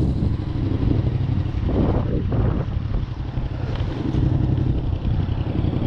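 A vehicle engine idling steadily and evenly, with a brief rustling noise about two seconds in.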